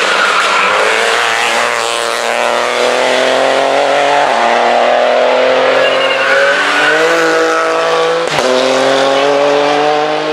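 Rally car engine accelerating hard out of a hairpin, revs climbing and stepping down at each gear change. There is a sharp crack about eight seconds in.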